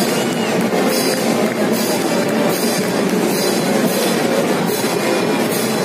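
Parade music with a regular drum beat about once a second, under a dense, loud wash of street noise.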